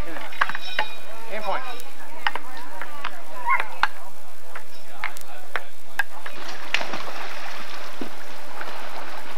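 Table-tennis rally: the ball clicking sharply off paddles and table, a few hits a second at uneven spacing. In the last few seconds, pool water splashing.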